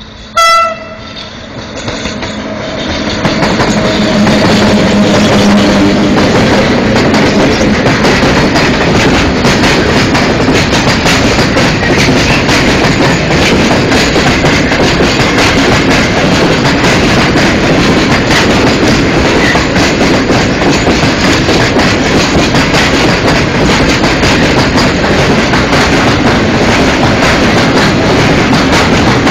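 A short horn blast from a PKP class ET22 electric locomotive. Then the double-headed ET22s and a long train of open coal wagons pass close by: a loud, steady rumble of wheels on rails with clickety-clack.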